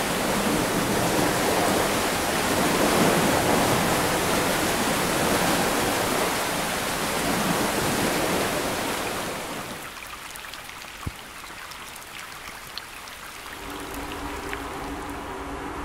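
Rushing river water, a loud steady rush that fades away about ten seconds in. What is left is quieter, with a couple of sharp clicks and, near the end, a low steady hum.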